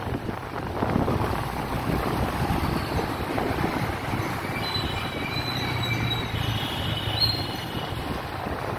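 Road traffic rumbling steadily, heard from a moving vehicle, with wind buffeting the microphone. Midway through a faint high-pitched whine comes in for a few seconds.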